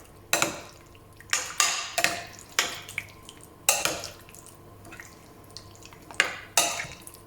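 A utensil stirring diced chicken in a thick yogurt marinade in a bowl, knocking and scraping against the bowl in about eight irregular strokes.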